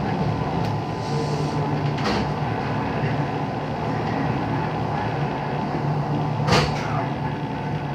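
Running noise inside a 221 series electric train moving slowly under a heavy-rain speed restriction: a steady low rumble and hum, with two sharp knocks, a faint one about two seconds in and a louder one near the end.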